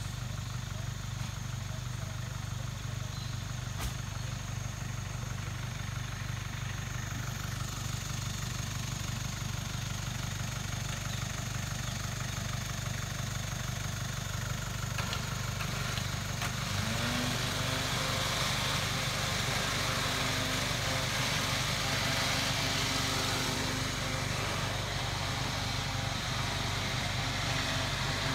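Vehicle engine idling steadily. Partway through, a higher steady hum joins in and the sound gets a little louder.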